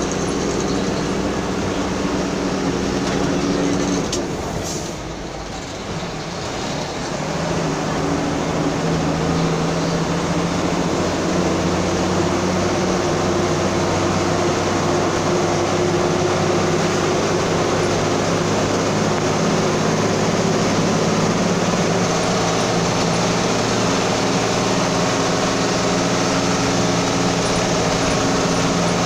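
Engine and road noise of a moving vehicle, heard from inside the cab: a steady drone that dips briefly about five seconds in, then picks up again and runs on evenly.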